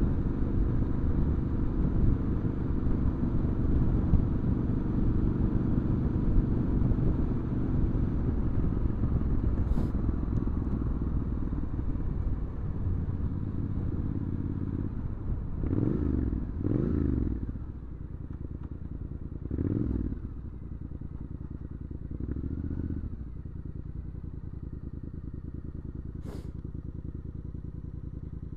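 Triumph Scrambler 900's parallel-twin engine running through an aftermarket Arrow exhaust, pulling steadily under way for about half the time. It then revs up briefly four times as the bike slows, and settles to a steady idle for the last several seconds.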